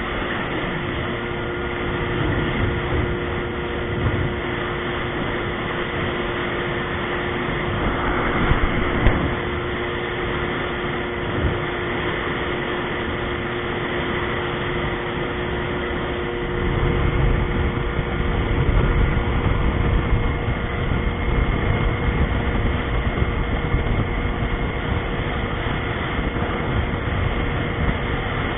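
Yamaha GP1300R personal watercraft's two-stroke triple running steadily under way, with a constant whine over a rush of water and wind. The low rumble grows louder a little past halfway.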